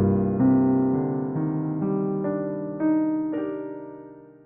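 Background piano music: a handful of slow notes and chords, each struck and left to ring, fading out near the end.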